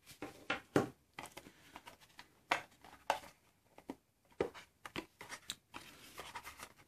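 Clear hard-plastic iPod nano case and its cardboard insert being handled and prised open: irregular clicks, taps and scrapes of plastic and card.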